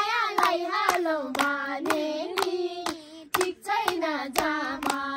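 Women and young girls singing a Nepali song together, with steady hand-clapping about twice a second; the singing breaks off briefly about three seconds in and picks up again.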